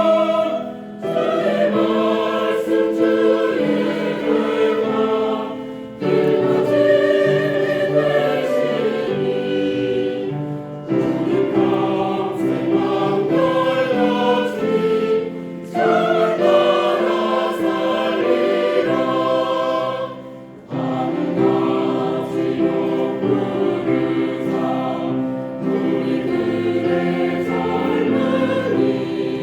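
Korean church choir singing a hymn in several voice parts, phrase by phrase, with short breaks between phrases about every five seconds.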